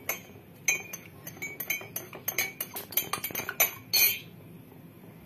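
Metal spoon stirring coffee in a ceramic mug, clinking quickly and unevenly against the sides for about three seconds.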